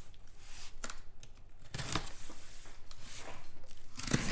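Cardboard shipping case being shifted about on a table, with scattered scrapes and light knocks. Near the end a louder rasping scrape as a box cutter starts slicing the packing tape on its seam.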